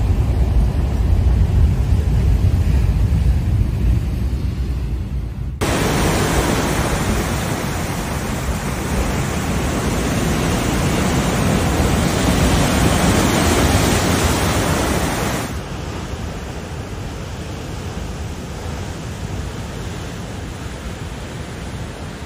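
Heavy storm surf and wind on the microphone in three spliced clips. First a deep wind rumble, then, about six seconds in, a sudden cut to louder, hissing surf washing into a rocky cove close by, and about sixteen seconds in, a cut to a quieter, steadier surf noise from waves breaking on rocks.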